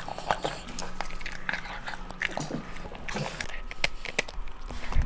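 An Italian greyhound eating and chewing close to the microphone: irregular wet smacks and clicks of its mouth and teeth.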